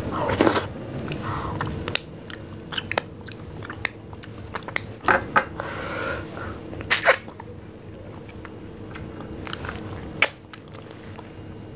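Close-miked mouth sounds of eating rice and mashed bhorta by hand: chewing, wet lip smacks and finger licking, with sharp clicks scattered through.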